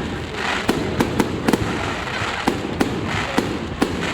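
Aerial fireworks display: shells bursting in a quick, irregular string of sharp bangs, roughly two a second, over a continuous hiss and crackle.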